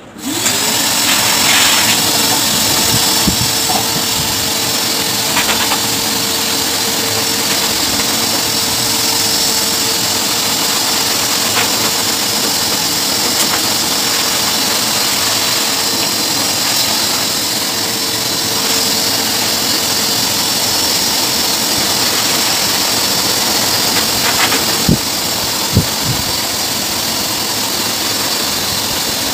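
Pet blow dryer (canister dog blower with hose) switched on. Its motor comes up to speed in about half a second, then runs steadily with a rushing air noise and a steady whine. A couple of short knocks come near the end.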